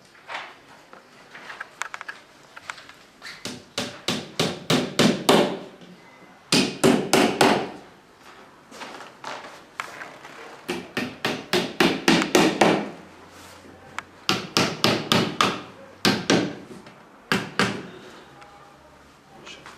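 Hammer tapping assembly connector pieces into shoe-cabinet panels, in runs of quick strikes with short pauses between them.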